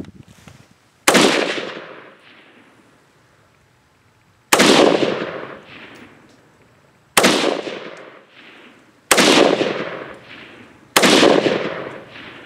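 Five single shots from a Zastava ZPAP M90PS, a 5.56 mm AK-pattern rifle with a muzzle compensator, fired slowly a few seconds apart while sighting in its red dot. Each shot is a sharp crack that dies away over about a second.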